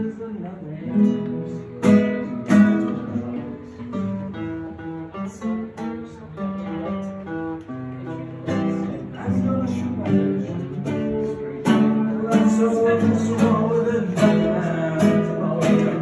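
Acoustic guitar played live, strumming chords mixed with plucked notes in a flowing rhythm.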